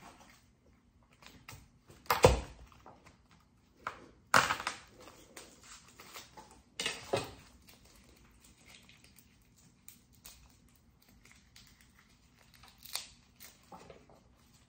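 Garlic cloves being broken from the bulb and their papery skins peeled by hand: dry crackling and tearing, with a few sharper cracks or knocks, the loudest about two seconds in.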